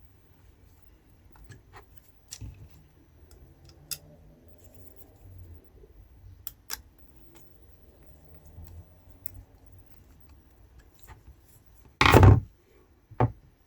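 Scattered small clicks and taps of small tweeter parts and screws being handled on a bench, with a loud short knock about twelve seconds in and a lighter one just after.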